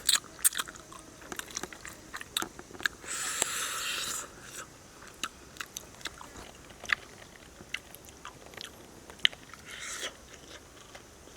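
Close-up eating sounds: biting and chewing with many sharp crunching clicks, and a short hissing noise about three seconds in and again near the end.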